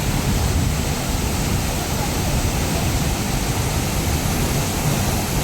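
Waterfall pouring: a steady rush of water with a deep rumble underneath, unchanging throughout.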